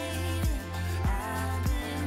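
Background music: a pop/R&B-style song with heavy bass and a steady beat, a little under two beats a second.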